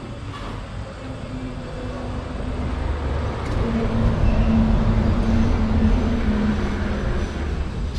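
Motor vehicle engine: a low rumble with a steady hum that builds for a few seconds, is loudest near the middle, and then eases off, like a vehicle driving past.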